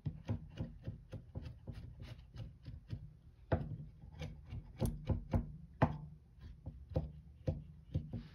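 Kitchen knife chopping carrots on a cutting board: a quick, even run of knocks about five a second, then slower, louder strikes from about three and a half seconds in.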